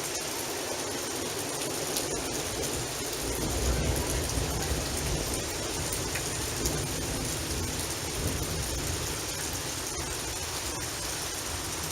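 Rain falling steadily, with a low rumble of thunder swelling about three seconds in and fading a few seconds later.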